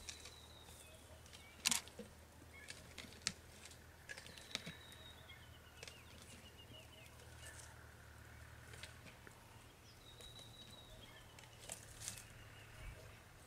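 An African elephant feeding in dry bush, with sharp snaps and cracks of twigs and branches, the loudest about two seconds in. A bird's falling whistled call, ending in a quick run of notes, comes three times, and a low steady hum runs underneath.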